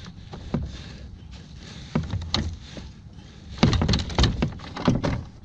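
Fishing-kayak seat being lifted by its front handle from its lowest setting: a few scattered clicks, then a run of loud clunks and knocks from the seat frame about three and a half seconds in.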